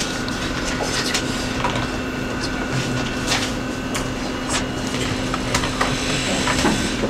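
Steady mechanical room hum with small clicks and knocks scattered through it.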